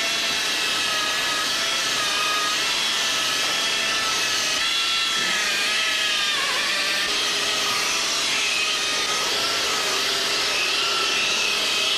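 Hand-held rotary polisher running, buffing polishing paste over a composite mould with its pad. It gives a steady whine over a hiss, the pitch wavering and dipping briefly about halfway through.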